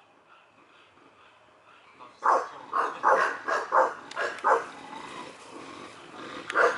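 English bulldog barking: a quick run of about eight barks starting about two seconds in, then one more bark near the end.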